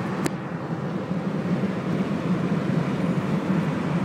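Steady road and engine noise inside a moving car's cabin at highway speed, with one sharp click just after the start.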